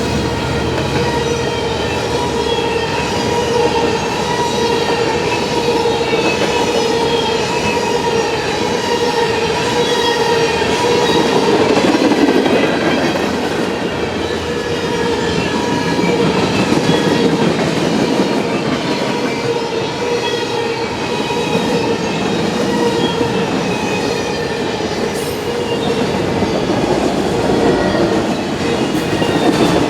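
A freight train rolling past at close range: the rumble and clatter of wheels on rail, with a steady high-pitched wheel squeal that is strongest in the first part and fades about 12 seconds in.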